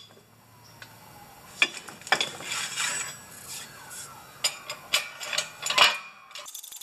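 Loose steel spacers clinking and scraping against each other as they are handled and stacked on a hydraulic shop press: a run of sharp metallic clinks with a short scrape in between.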